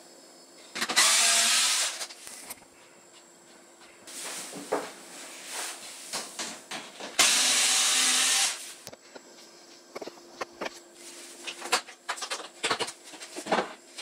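Bosch cordless screwdriver whirring in two runs of about a second each, near the start and about halfway through, driving screws into a dishwasher's side panel. Clicks and knocks of handling come between and after.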